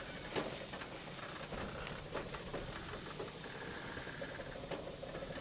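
Faint crackling, pattering ambient noise dotted with small irregular ticks, with a faint steady tone in the middle.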